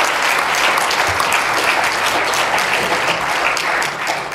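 Audience applauding, a dense run of many people clapping that begins to thin out near the end.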